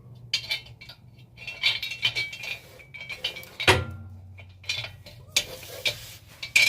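Metal-on-metal clinking and clanking of hand tools and exhaust parts being handled under a car, with a sharp knock a little past halfway.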